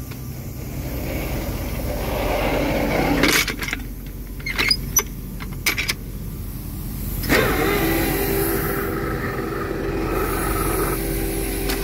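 Steady drone of a tractor running at raised hand-throttle revs to drive the pump filling a digestate tanker, with a few sharp metallic clanks and knocks in the middle. About seven seconds in, a louder steady machine hum with a clear tone cuts in and carries on.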